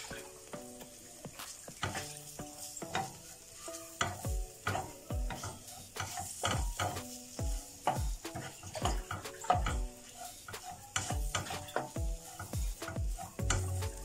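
Wooden spatula stirring and pressing shredded chicken and flour around a nonstick frying pan, with repeated soft knocks and scrapes against the pan about once or twice a second, over a faint sizzle. The flour is cooking in butter with the chicken to start a béchamel.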